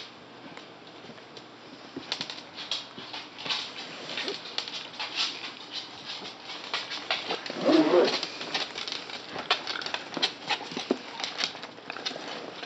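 West Highland white terrier puppies playing close up: scattered scuffling and scratching as they paw and mouth at a blanket, with a short puppy vocal sound about eight seconds in.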